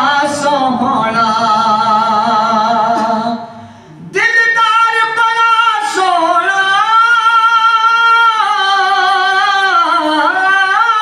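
A man singing a naat (devotional song in praise of the Prophet) into a microphone, in long held notes that waver in pitch, with a brief break for breath about four seconds in.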